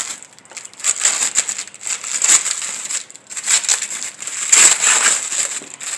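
Protective plastic film being peeled partway off a new headlight assembly, crinkling in irregular rustles.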